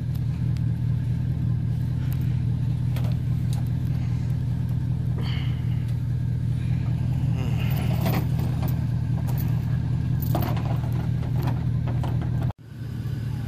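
Pickup truck engine idling steadily, with a few faint knocks on top. The sound drops out for an instant near the end, then carries on.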